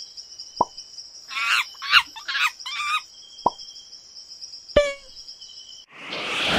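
Nature ambience sound effects: a steady high drone, occasional water-drop plops, and a burst of chattering animal calls about a second and a half in. Near the end a whoosh rises to the cut.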